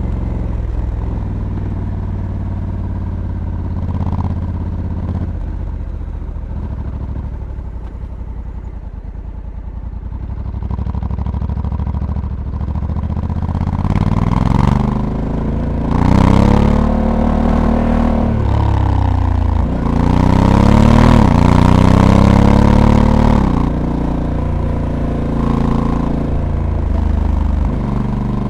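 Honda Africa Twin's 1084 cc parallel-twin engine heard from onboard the moving motorcycle. It runs low and soft for the first dozen seconds, then pulls hard several times, its pitch rising and dropping back. The loudest run comes about two-thirds of the way through.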